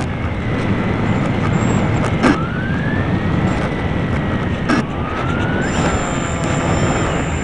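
A homemade RC plane's motor and propeller, recorded by the camera on the plane, with heavy wind rumble on the microphone. The motor's whine twice drops with a click and climbs back up in pitch, about two and five seconds in.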